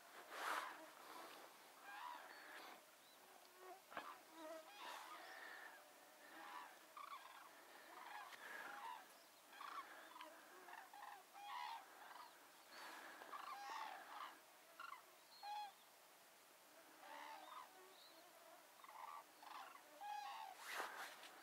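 A flock of common cranes calling in flight: many short trumpeting calls, overlapping and coming in uneven bunches, faint. A brief louder noise about half a second in.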